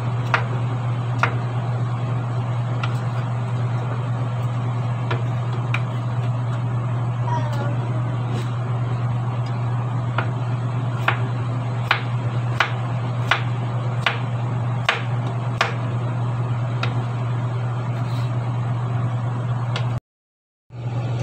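Kitchen knife chopping bottle gourd on a wooden cutting board: sharp, irregular knocks, about one a second, over a steady low hum. The sound drops out for under a second near the end.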